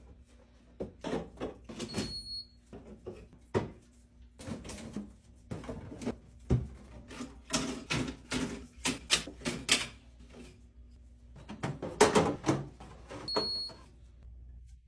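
Refrigerator being emptied: irregular knocks, clinks and rattles of containers, jars and bottles being handled, with the fridge door and drawers opening and shutting. Two short high beeps sound about two seconds in and again near the end.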